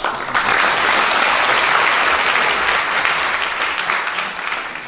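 Audience applauding, coming in just after the start and dying away near the end.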